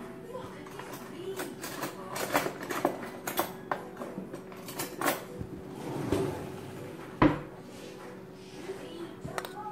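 Kitchen utensils and containers being handled: a run of short clinks and knocks of a spoon against jars and a bowl, with one louder knock about seven seconds in.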